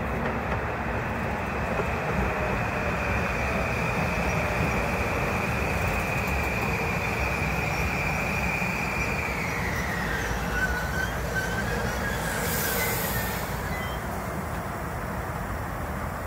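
Metro-North M8 electric multiple-unit train moving through the station: steady rumble of wheels on rail with a high whine that drops in pitch about nine seconds in, then a brief hiss about twelve seconds in.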